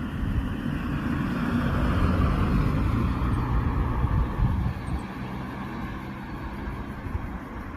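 A motor vehicle passing: engine rumble and road noise swell about two seconds in, slide lower in pitch, then fade.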